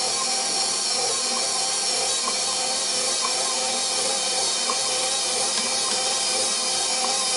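KitchenAid stand mixer running steadily as it mixes bread dough: an even motor and gear whine, with small light ticks here and there.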